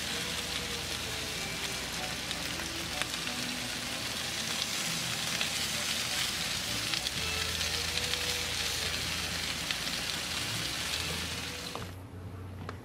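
Bacon-wrapped chicken skewers sizzling on a grill grate as they are brushed with barbecue sauce. The steady sizzle cuts off suddenly near the end.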